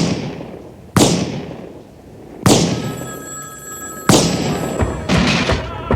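A run of loud, sharp gunshots, one about every second, each with a long echoing tail. A telephone rings briefly between them about halfway through.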